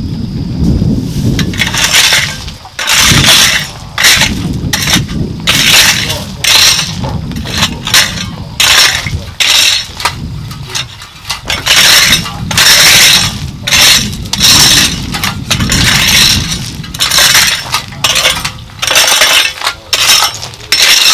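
Repeated gritty scraping and clinking strokes, roughly one a second, from hand work with stone, brick rubble or gravel, over a steady low rumble.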